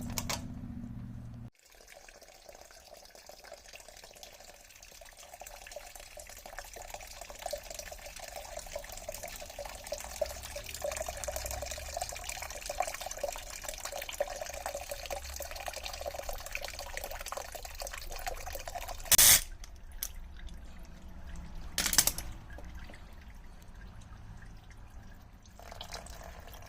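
Water trickling and dripping out of a boat engine's opened cylinder head: water that had been sitting inside the motor. Two sharp knocks near the end, about three seconds apart.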